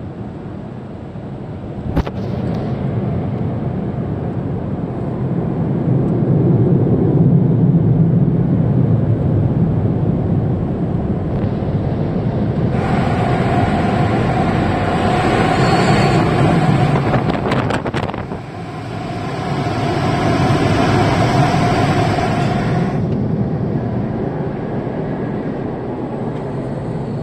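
Automatic car wash heard from inside the car: a loud low rushing, then about halfway through two long passes of a hissing blast with a steady whine, typical of the drying blowers at the end of the wash. It dies down as the car leaves.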